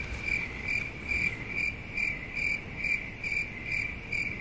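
Steady, evenly spaced insect chirping, about two short chirps a second, all on the same pitch.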